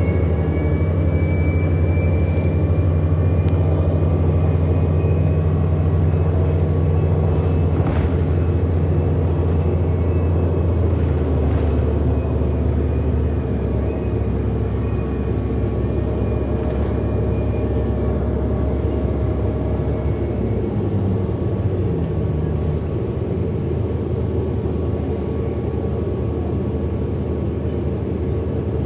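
Inside a 2008 Orion NG hybrid-electric city bus in motion: a steady low drone from the drivetrain, with a faint high whine from the hybrid drive that drifts slowly in pitch. The drone eases a little about halfway through.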